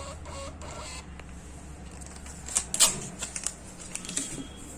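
A cluster of sharp clicks and rattles from a printing weighing scale being operated, coming about two and a half to four seconds in, over a low steady hum.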